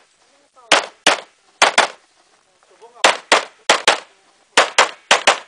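Handgun fired in quick double-taps: about a dozen sharp pistol shots in six pairs, two shots per target, each pair a fraction of a second apart with brief gaps between pairs.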